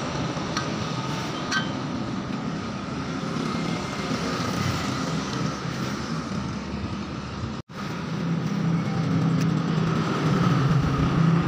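Steady mechanical rumble with a low hum, broken by a brief dropout about two-thirds of the way through; a couple of light clicks about a second in.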